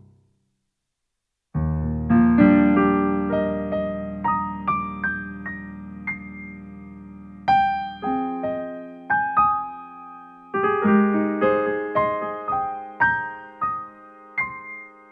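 Casio CT-X700 keyboard playing a piano tone: after a brief silence a low chord is held under a melody of single notes, with new phrases of notes starting about halfway through and again a few seconds later.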